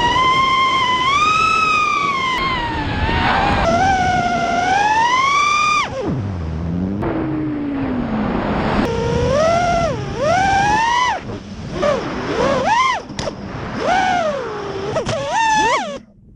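FPV racing quadcopter's brushless motors and propellers whining. The pitch rises and falls constantly with the throttle, drops low for a couple of seconds partway through, then jumps in quick punches. The sound cuts off abruptly near the end.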